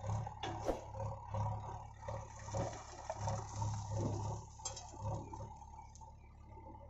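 Diesel engines of a JCB backhoe loader and a Mahindra Arjun 555 DI tractor running with an uneven low throb, while sand pours from the loader's bucket into the tractor trolley with a rushing hiss that dies away near the end.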